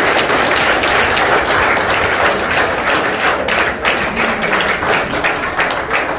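A large audience applauding, dense clapping that thins out toward the end.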